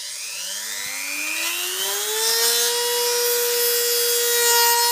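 Dremel-type rotary tool with a cutting disc spinning up to full speed: its whine rises over the first two seconds, then holds steady. From about two seconds in a harsh hiss joins as the disc grinds a groove through a ball bearing rusted fast onto the wheel's steel axle.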